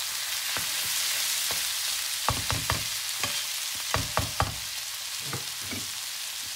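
Vegetables sizzling in a frying pan while a spatula stirs them. The spatula knocks against the pan in two quick runs of about three knocks, around two and four seconds in.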